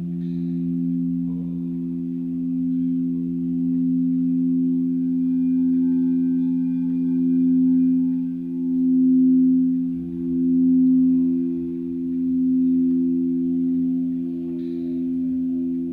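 Singing bowls ringing with several sustained tones at once, the sound swelling and fading in slow waves as the tones beat against each other.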